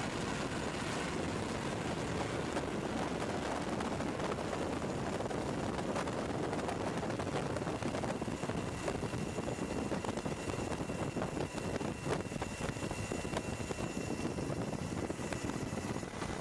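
Steady aircraft noise, most like a helicopter's rotor and turbine heard from on board, with faint steady high whines over it.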